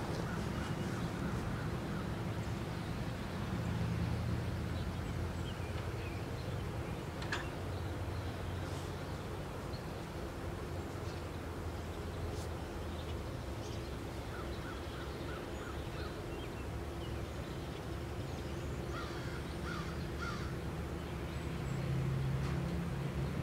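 EMD GP38-2 diesel-electric locomotives idling at a standstill, their two-stroke diesels giving a steady low hum. Birds call a few times over it.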